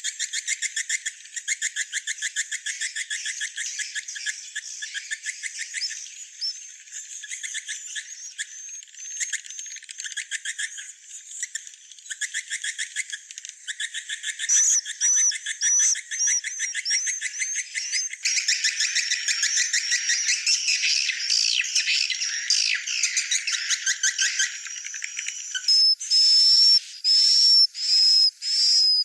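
Swiftlet calls, as used to lure swiftlets to a nest house: fast trains of twittering clicks with short high chirps. The chatter thickens into several overlapping voices past the middle, and loud repeated chirps come near the end.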